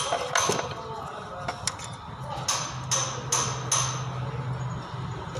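Metal being struck repeatedly, like hammer blows, in an uneven rhythm; each strike rings with a high metallic tone. A low steady hum comes in about halfway.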